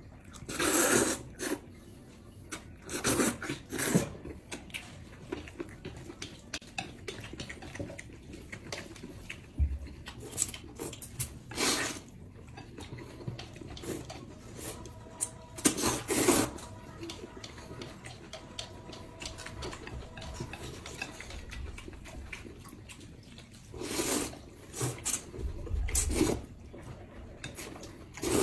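Noodles being slurped with chopsticks: repeated loud slurping draws a few seconds apart, with chewing and chopsticks clicking against the plates in between.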